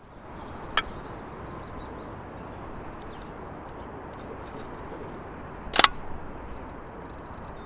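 Sharp mechanical clicks from a Bronica SQ-A medium format film camera being handled: one about a second in and a louder double click near six seconds, over a steady outdoor background hiss.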